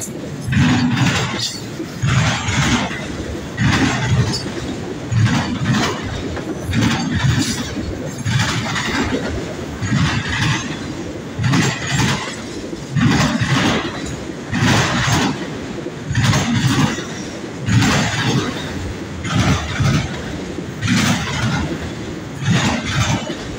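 Freight train cars rolling past, their wheels clacking over the rail joints in a steady rhythm, about one clack every second and a half, over a continuous rumble.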